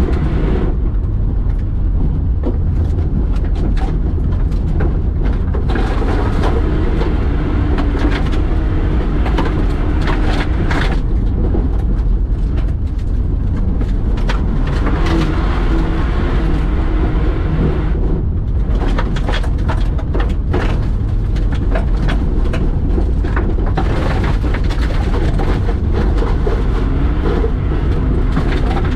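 Car engine under hard driving on a loose dirt course, heard from inside the cabin: a heavy rumble with the engine pitch rising and falling as the driver works the throttle, and many sharp clicks of stones and dirt striking the underbody.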